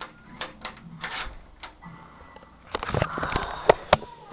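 Metal door chain lock clinking and rattling as its chain is slid into the slot track, with a louder clatter about three seconds in that ends in two sharp clicks.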